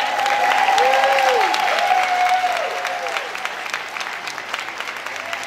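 Audience applauding at the end of a dance number, with a few rising-and-falling whoops over the clapping in the first few seconds.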